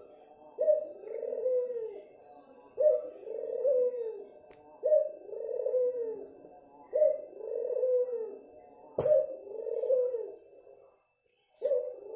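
Barbary dove (ringed turtle dove) cooing over and over: six two-part coos about two seconds apart, each a short sharp note followed by a longer falling one. A sharp click about nine seconds in.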